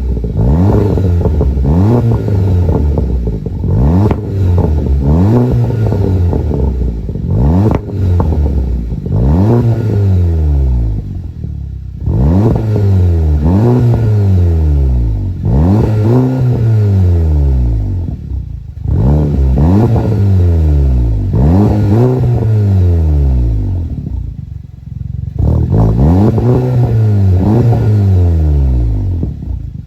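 A VW Golf GTI Mk7's 2.0-litre turbo four-cylinder, exhaling through a Magnaflow cat-back exhaust with the muffler deleted, revved up and let fall back over and over, about once a second with a few short pauses. Pops and crackles sound from the exhaust as the revs drop.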